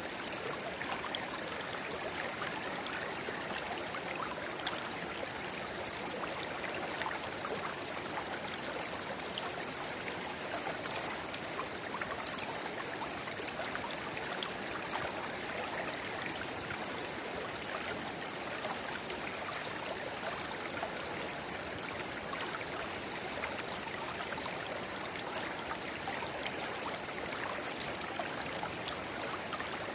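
River water babbling steadily over stones, with the trickle of a narrow spring-fed inflow pouring into the main stream; many small splashes and gurgles in the even rush of water.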